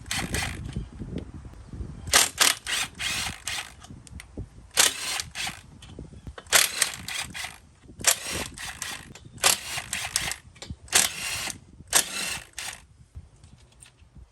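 Hand ratchet clicking in about eight short bursts of rapid clicks, with brief pauses between, as bolts holding the carburetor intake ports are backed out.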